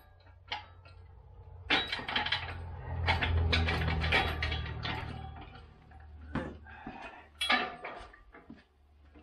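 Steel folding engine hoist (Pittsburgh shop crane) being handled: its metal parts clank and rattle in a string of sharp knocks, with a low rumble for a couple of seconds around the middle.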